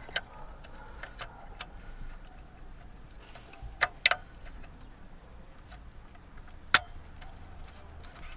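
Plastic wiring-harness connectors clicking and rattling as a plug is worked into the power socket on the back of a car multimedia head unit. There are small ticks throughout, with a few sharp clicks: one near the start, two close together about four seconds in and one near seven seconds.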